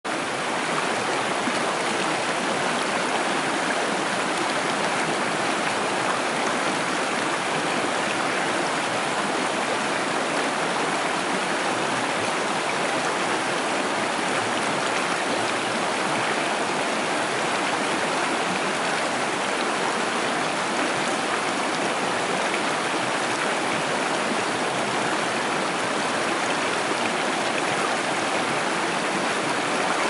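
Creek water rushing steadily, an even unbroken wash of sound.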